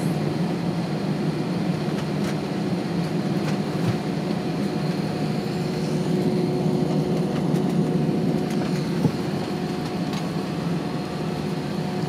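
Steady cabin noise inside an Airbus A320 taxiing after landing: a constant low drone from the engines at idle and the air-conditioning, with a couple of steady held tones over it.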